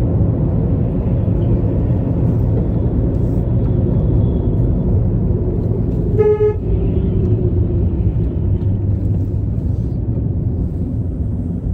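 Steady low rumble of road and engine noise inside a moving car's cabin, with a short car horn toot about six seconds in.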